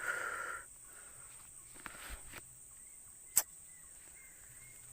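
Quiet outdoor background: a brief rush of noise at the start, then a faint steady high hum, and a single sharp click about three and a half seconds in.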